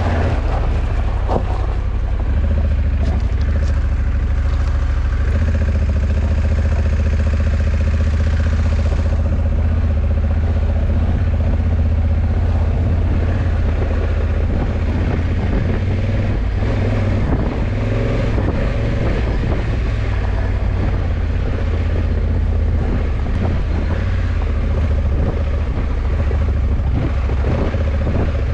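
Honda CRF1100 Africa Twin's parallel-twin engine running steadily while riding, with a low, even engine hum under wind noise on the microphone.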